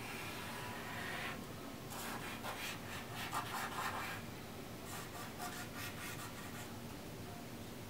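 Glow-paint marker tip scratching across the painting surface in three spells of quick strokes with short pauses between.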